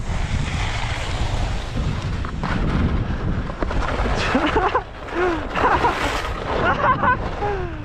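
Strong wind buffeting the microphone, a heavy constant rumble, over the wash of the sea.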